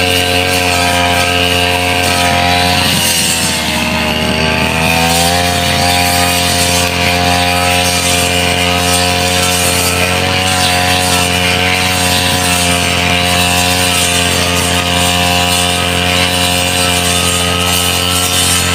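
Backpack brush cutter engine running at high speed while cutting tall grass, its pitch sagging about three seconds in and climbing back a couple of seconds later.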